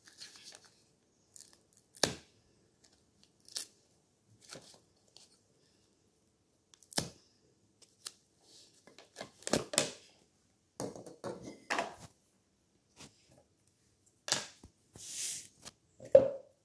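Kitchen knife cutting into a green foam-covered plastic toy: scattered clicks, scrapes and short tearing sounds of the foam and plastic being handled and cut, with a sharp knock near the end.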